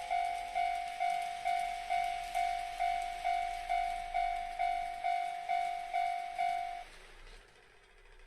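Toy Japanese level crossing's warning bell ringing in a steady kan-kan rhythm, about two strikes a second, each strike fading before the next, then cutting off suddenly near the end.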